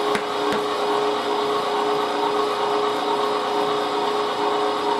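MEAT! Your Maker 1.5 HP electric meat grinder's motor running steadily with a constant hum, nearly empty after the last of the pork has been pushed through. Two short clicks sound in the first second.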